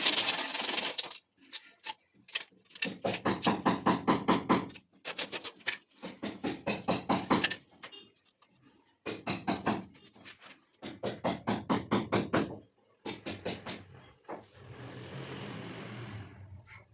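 Hammer blows in quick runs, about five strikes a second for a second or two at a time, with short pauses between runs. Near the end comes a steady rushing or scraping noise lasting about two seconds.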